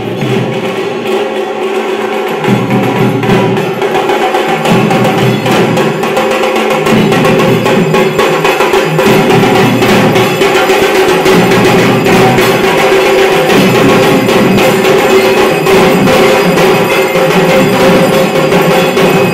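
Loud music driven by fast, continuous drumming and percussion strikes over steady held tones, getting louder a couple of seconds in.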